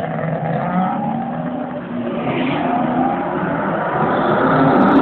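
Suzuki GT750's water-cooled 738 cc two-stroke three-cylinder engine, fitted with a collector exhaust, running as the bike rides off along a street with car traffic; the engine note grows louder over the last couple of seconds.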